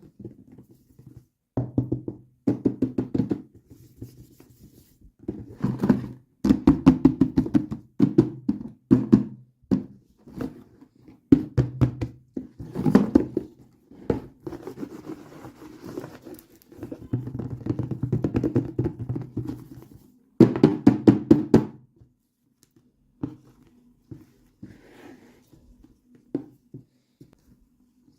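Hands handling and knocking on toy packaging, in bursts of rapid clicking a second or two long with short pauses between. The bursts thin out near the end.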